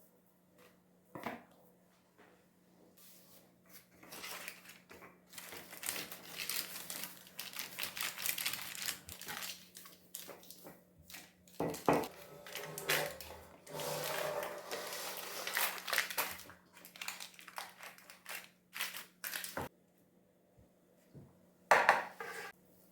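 Irregular crinkling and rustling handling noises with scattered sharp clicks and knocks, densest through the middle stretch.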